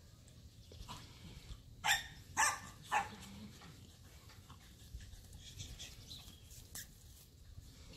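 A dog barks three times in quick succession, each bark short, about two to three seconds in.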